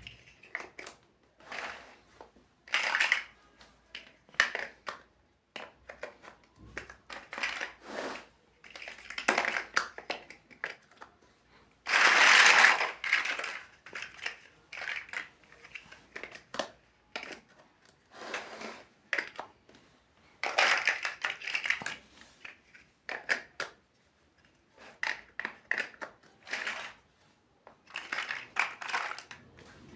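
Plastic building bricks being handled and pressed together: scattered clicks and short rustles, with a louder rustle lasting about a second and a half roughly twelve seconds in.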